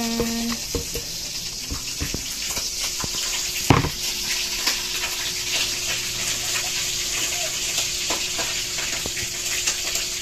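A steady hiss with scattered light clicks and taps, and one louder knock about four seconds in, from kitchen handling around a steel pot of water that holds chopped onion, garlic and chili.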